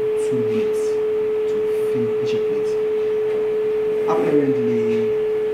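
ECRM Mako computer-to-plate platesetter running, giving off a steady, single-pitched mid-range whine that does not change.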